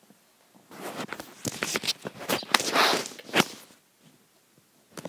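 Phone handling noise: rustling, rubbing and sharp knocks for about three seconds as the phone is moved about in the hand, then only faint rustles.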